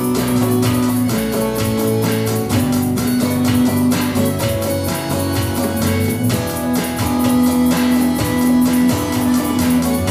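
Live band music: an acoustic guitar strumming over an electric bass line with a light electronic drum kit, playing a slow song.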